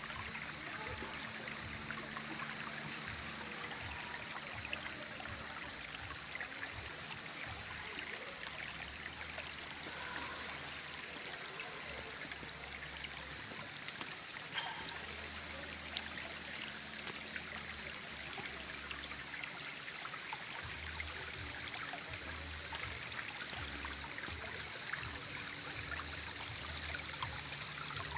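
Small creek's water running and babbling over stones, a steady, even rush.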